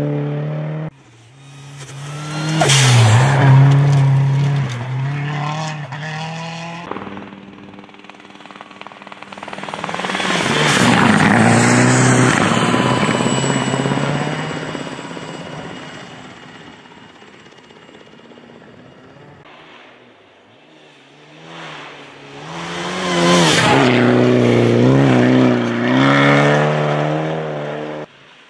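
Rally cars passing one after another at speed on a snow-covered stage, each engine revving hard with quick rises and drops in pitch through gear changes, then fading away. The loudest pass, about ten to fourteen seconds in, is a rush of engine and tyre noise as the car slides and sprays snow.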